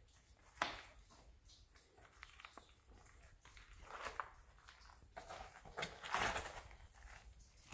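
Faint, irregular footsteps and scuffs on the rocky floor of a mine tunnel, with a sharp knock about half a second in and louder scraping steps around four and six seconds in.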